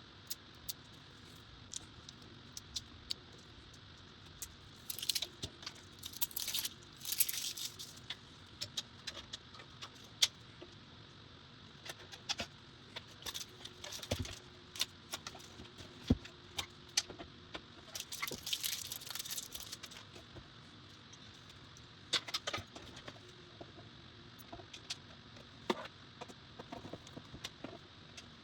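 Scattered sharp clicks and brief metallic rattles of small screws and case parts being handled, as PC case fans are fitted to the case's top mount.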